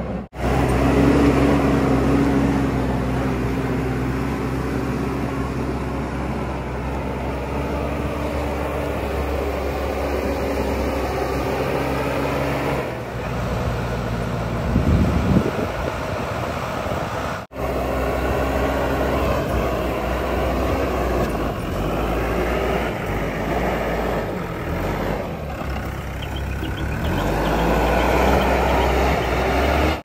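ACE AX-124 backhoe loader's diesel engine running under working load while the machine grades loose soil, a steady engine note whose pitch shifts now and then with the revs. The sound breaks off for an instant twice, once just after the start and once about halfway through.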